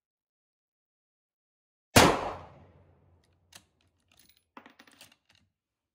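A single rifle shot from a Ruger M77 Gunsite Scout chambered in 5.56 with a 16.1-inch barrel, firing a 55-grain .223 Remington round, about two seconds in; the report dies away over about a second. A few faint clicks follow a second or more later.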